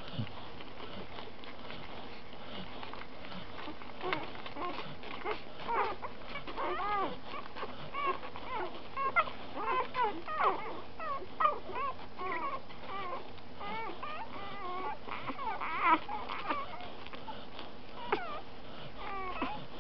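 Three-day-old Eurasier–Samoyed cross puppies squeaking and whimpering while they nurse: many short, high cries that bend in pitch, beginning about four seconds in, coming thickly through the middle and thinning out near the end.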